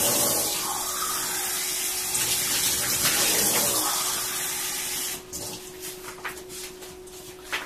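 Water running steadily for about five seconds, then stopping, followed by a few light clicks and knocks: about a cup of hot water being drawn to add to the beef curry.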